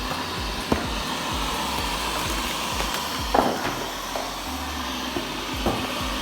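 360 robot vacuum cleaner running: a steady whir from its suction fan and brushes, with a few short knocks, the loudest about three and a half seconds in.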